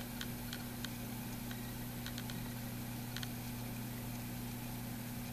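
Quiet room tone: a steady low hum with faint, irregular ticks.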